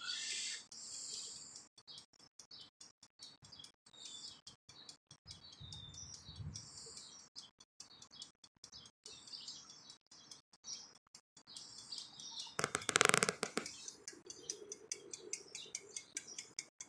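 Birds chirping faintly in short, scattered calls, with one brief louder rushing noise about 13 seconds in.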